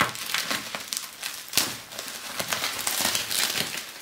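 Packaging crinkling and crackling as it is unwrapped by hand, with irregular rustles and one louder crackle about a second and a half in.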